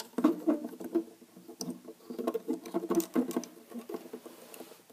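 Hands handling small plastic action figures: a run of light clicks and scratchy rubbing as the Steve figure is fitted onto the horse's saddle.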